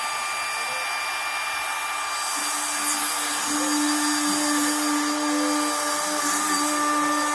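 Electric wood router running at full speed with a steady high whine while its bit cuts into a pumpkin; a lower hum joins about two and a half seconds in.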